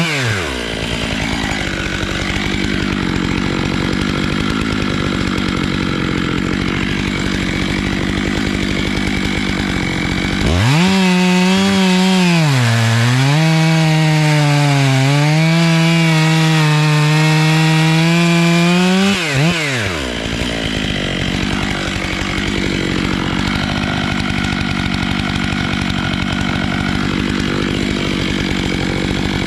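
Stihl MS 881 two-stroke chainsaw on a 36-inch bar in an Alaskan chainsaw mill, cutting through black walnut. The engine note sits low under load in the cut, then climbs to a high, steady scream at full revs for about nine seconds, with one brief dip, before it falls back under load in the cut. It revs up again right at the end.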